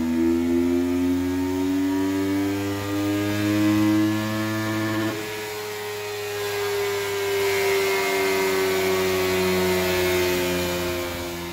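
Yamaha R3's parallel-twin engine running hard on a motorcycle dynamometer during a power run, its pitch climbing steadily for about five seconds, then changing abruptly and easing slowly down.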